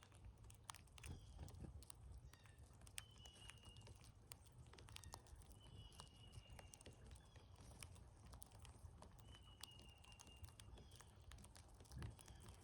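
Faint bird sounds at a backyard feeder: a short, level whistled note repeating about every three seconds, with scattered light clicks and ticks between.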